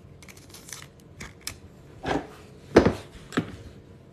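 A trading card sliding into a rigid clear plastic toploader, a light scraping rustle with small clicks. Then three sharp knocks as the toploader is set down into a plastic card stand, the middle knock the loudest.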